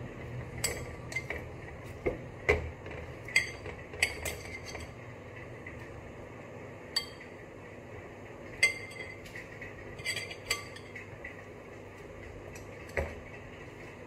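A metal spoon clinking against a glass mixing bowl as a marinated whole chicken is turned in it: about a dozen irregular sharp clinks with a short ring, bunched near the start, again past the middle, and once near the end.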